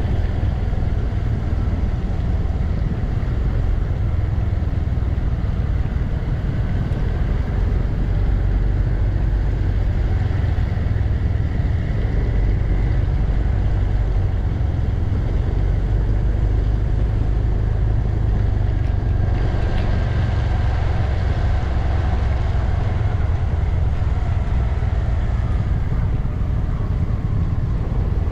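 BMW C 400 X scooter on the move: a steady low rumble of wind and road noise on a windscreen-mounted camera, with the single-cylinder engine's note faintly rising and falling.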